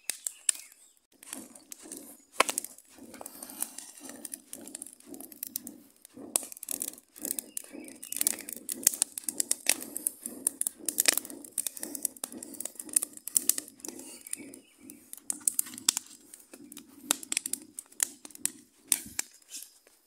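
Small campfire crackling and popping as air is blown onto its embers through a homemade tree-bark tube blower, a low rushing blow heard again and again while the fire flares up.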